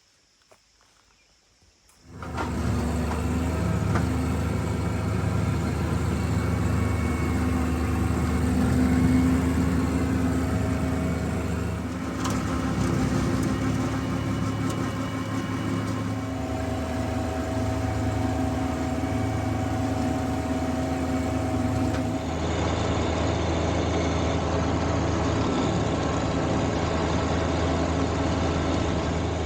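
John Deere 1025R compact tractor's three-cylinder diesel engine running steadily at working speed, coming in abruptly about two seconds in after near silence.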